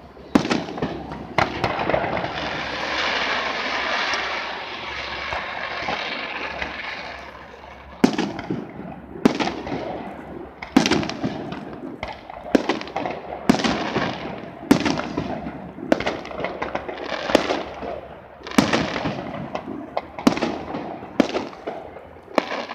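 Aerial fireworks going off at a distance: a steady crackle for the first several seconds, then a run of sharp booms about one every second or so, each with a short echo.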